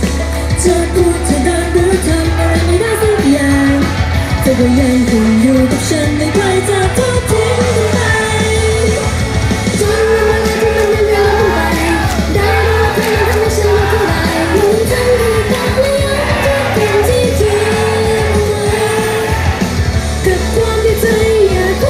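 Live pop song: a female idol group singing a melody into microphones over loud accompaniment with a steady, heavy bass.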